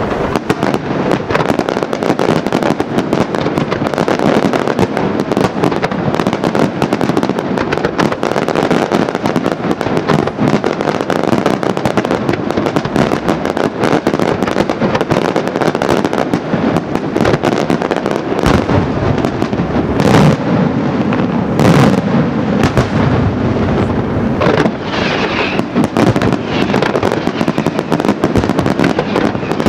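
Daytime fireworks shells bursting in rapid, dense succession, a continuous rattle of crackling bangs. Two louder, sharper bangs come about twenty seconds in.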